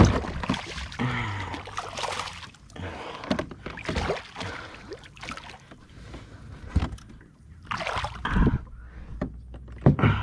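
Hooked largemouth bass splashing and thrashing at the water's surface beside a plastic kayak, with irregular knocks and bumps of gear against the hull as it is fought in; a sharp splash right at the start and more about two-thirds of the way through.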